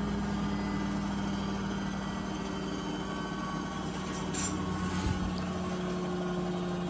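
Beko WTK104121A washing machine spinning at high speed on its 1400 rpm spin, a steady, even motor and drum hum, with a brief knock about four and a half seconds in.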